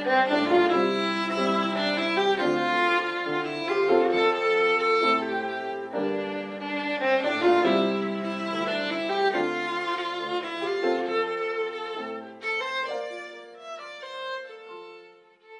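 Instrumental background music: a melody of changing notes over bass notes, becoming sparser and quieter in the last few seconds.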